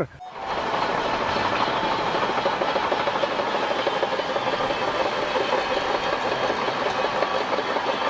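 Shantui crawler bulldozer's diesel engine and steel tracks running steadily as it works, fading in just after the start.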